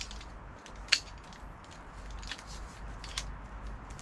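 Clicks and rustling as the disassembled metal frame parts of a lightweight camping table are handled and packed into its fabric carry bag, with one sharp click about a second in and fainter clicks later.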